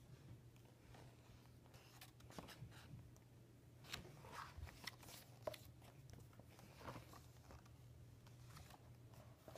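Faint rustling of large paper book pages being turned by hand, the paper sliding and flapping, loudest about four to five seconds in.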